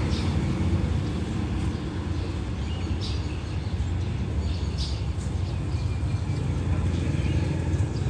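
Steady low engine rumble with a few short bird chirps.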